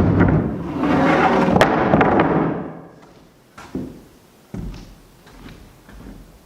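Lumber being handled and knocked into place: a loud rough scraping and bumping for the first couple of seconds, then a few separate wooden thumps.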